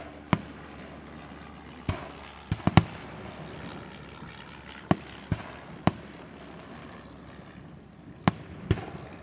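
Aerial fireworks shells bursting across the lake: about ten sharp bangs at irregular intervals, the loudest a quick run of three just under three seconds in, and two more near the end.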